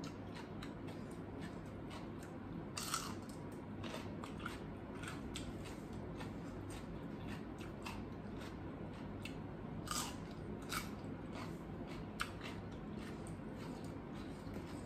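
A person biting and chewing food, with many small crunchy mouth clicks. Two sharper clicks stand out, about three seconds in and again about ten seconds in.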